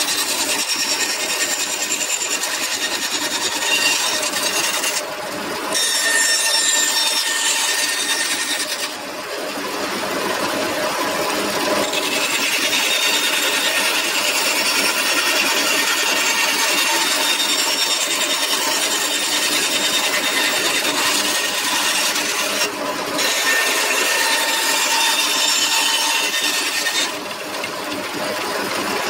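Band saw running and cutting through a wooden board, its blade rasping through the wood over a steady motor whine. The cutting sound lets up briefly a few times as cuts end and new ones begin.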